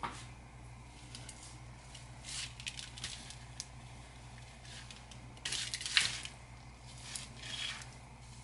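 Spice shaker bottles being shaken over a raw chicken: several short bursts of rattling and sprinkling, with a sharp click about six seconds in.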